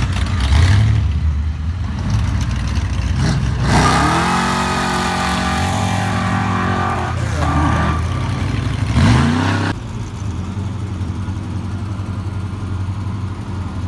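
Classic car engines revving hard, the pitch climbing steeply about three seconds in and again about nine seconds in. A dense hiss lies over the revving for several seconds in the middle: tyres spinning in a burnout. The sound drops off suddenly near ten seconds to a steadier, lower engine rumble.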